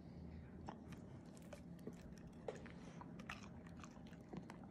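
A Doberman chewing and lip-smacking on a mouthful of banana: a quiet string of short, irregular mouth clicks and smacks.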